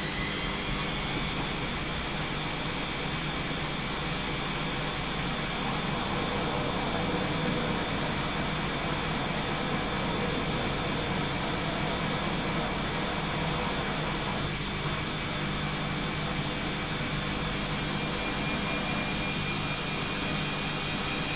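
Washing machine in its spin cycle: the drum motor's whine rises to full spin speed about a second in, then holds steady as a high whine over a low hum.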